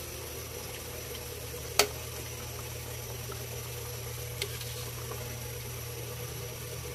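Metal ladle moving through fish soup simmering in a stainless steel pan, over a steady low hum. The ladle knocks sharply against the pan once about two seconds in, and lightly again a little after four seconds.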